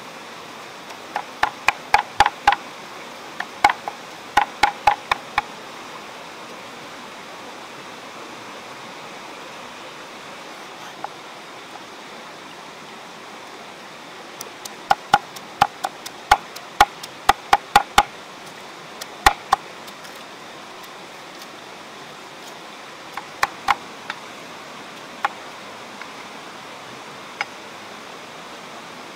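Cleaver chopping and mincing pork with chili on a round wooden chopping block: runs of sharp knocks, about four a second, with pauses between runs, over a steady background hiss.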